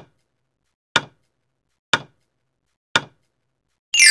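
Countdown timer sound effect: a sharp tick once a second, four times, then a ringing ding near the end as the count reaches zero.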